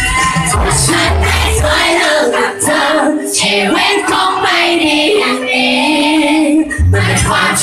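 Live pop song played over a PA: a singer sings into a microphone with backing music. The deep bass drops out about two seconds in, leaving the voice over lighter accompaniment, and comes back in near the end.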